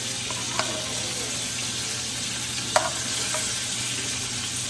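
Butter sizzling steadily in a hot frying pan, with a couple of light clicks.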